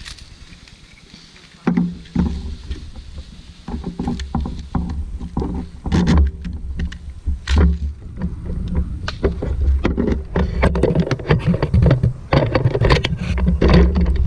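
Low rumbling noise on the microphone with scattered sharp clicks and crunches, which come thicker and faster near the end.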